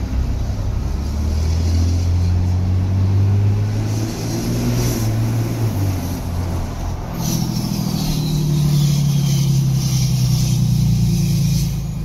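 A 2015 Ram 2500's 6.7-litre Cummins turbo diesel with a 4-inch exhaust, heard from the cab through the open rear window, running as a steady low drone. About seven seconds in the note shifts to a higher drone and a turbo whistle falls in pitch as the exhaust brake comes on.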